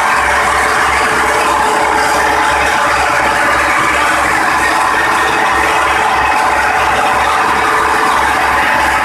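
An old Belarus tractor diesel engine running steadily and loudly while driving a flour-mill grinder through belts; engine and mill together make one continuous mechanical din.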